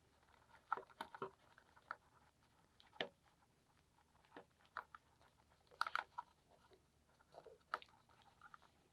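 Faint, scattered clicks and crinkles of a replacement earpad being worked and stretched onto a Sony headphone earcup by hand.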